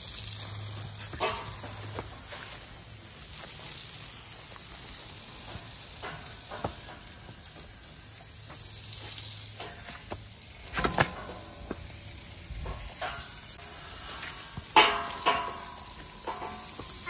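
Water spraying from a garden hose nozzle, a steady hiss, broken by a few sharp knocks, loudest about two-thirds of the way in and again near the end.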